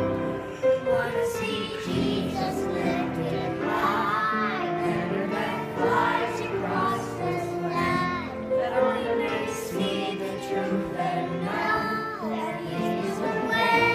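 A group of young children singing a Christian song together in unison, over instrumental accompaniment.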